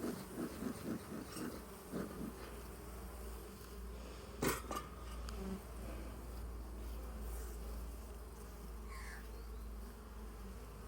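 Honeybees buzzing around an opened hive, a steady hum, with one sharp knock about four and a half seconds in.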